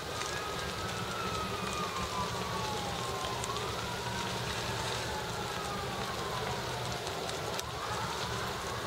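Two or more emergency-vehicle sirens wailing, their tones slowly rising and falling and overlapping, over a steady rushing noise from the fire hoses and fire-engine motors at a burning building.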